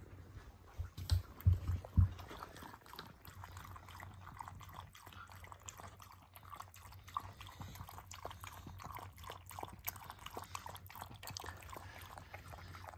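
Shiba Inu lapping water from a bowl in a quick, steady run of small splashes and tongue clicks. A few dull thumps come about a second or two in, the loudest sounds here.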